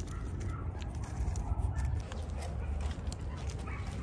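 Irregular crunching of footsteps on loose wood chips, over a steady low rumble of wind on the microphone.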